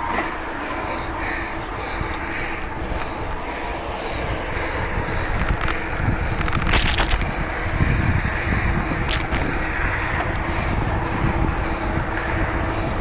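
Bicycle rolling along at speed: a steady rush of rolling and wind noise with low rumble, broken by a few sharp clicks from the bike about halfway through.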